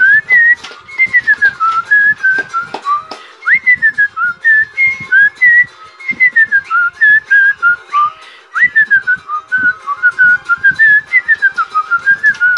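A person whistling a melody, a clear single tone moving up and down in short notes and glides, with frequent irregular sharp taps or clicks alongside.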